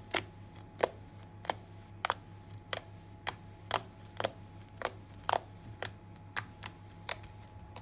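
Slime being pressed and worked by hand, giving a string of sharp clicking pops about two a second: the crackly slime sound popular in slime videos.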